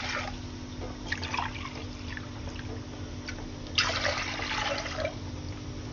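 Water being poured from a steel glass into a steel pot, splashing in short spells with a longer pour a little after halfway. A faint steady hum runs underneath.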